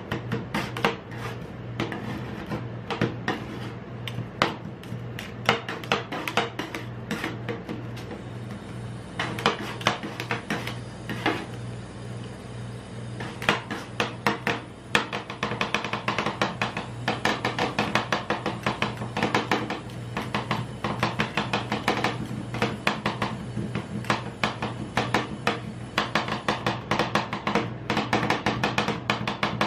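Two metal spatulas chopping and scraping ice cream on a steel rolled-ice-cream cold plate: rapid, irregular clicks of the blades striking the plate, denser in the second half, over a steady low hum.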